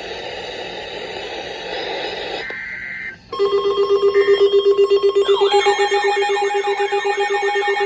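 Weather radio alert: static hiss and a short burst of the SAME data tones, then about three seconds in a loud, rapidly pulsing alarm tone starts as a warning alert comes in. About five seconds in, a warbling siren sweeping up and down joins it.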